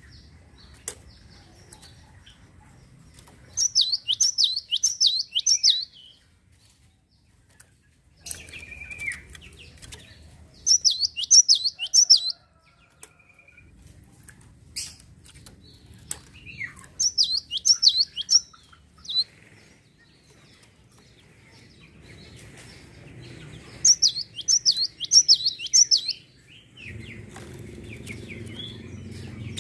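Gelatik songbird singing in four loud bursts of rapid, high, falling chirps, each burst about two seconds long and coming every six or seven seconds, with scattered clicks and a faint low hum between them.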